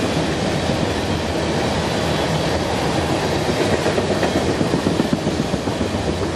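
Freight train tank cars rolling past, a steady rumble of steel wheels on rail with quick clacking as the wheels cross the rail joints, busiest about four to five seconds in.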